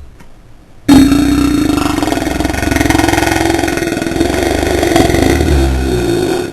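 A man's long, loud burp that starts about a second in and is held at a fairly steady low pitch for about five and a half seconds.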